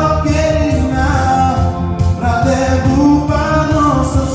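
A song with singing held on long notes over a backing track with a steady beat.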